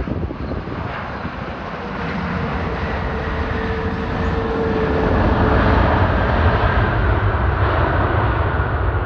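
Jet engines of an ANA Boeing 787-8 Dreamliner, Rolls-Royce Trent 1000 turbofans, coming in to land. A deep rumble with a whine above it grows louder over the first half and then stays loud.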